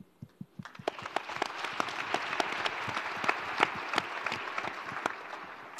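Audience applauding, starting about half a second in and fading near the end.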